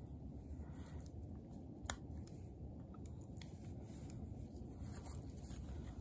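Small clicks and handling noise as insulated spade connectors on the red and black wires are fitted onto the terminals of a 12-volt USB socket, with one sharp click about two seconds in, over a steady low background rumble.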